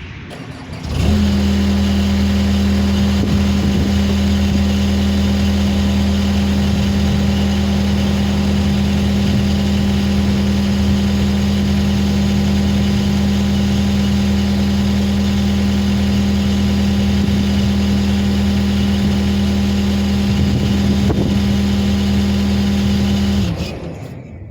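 An engine comes up to speed about a second in, runs at a steady speed for about twenty seconds, then shuts down near the end.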